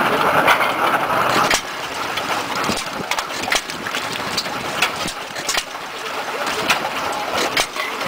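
Antique side-shaft stationary gas engine running, with sharp exhaust beats at uneven gaps of about a second over a steady mechanical clatter. The sound is louder for the first second and a half.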